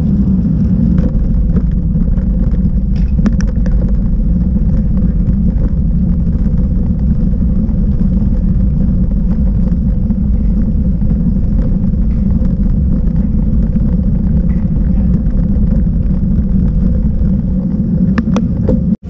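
Wind buffeting the microphone of a bike-mounted action camera on a moving road bike, mixed with tyre and road rumble over tarmac and cobbles: a loud, steady, low rush with a few short knocks. It cuts off suddenly near the end.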